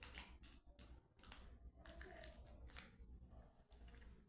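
Faint crinkling and crunching handling noises from a sweet and its wrapper, a string of short irregular crackles.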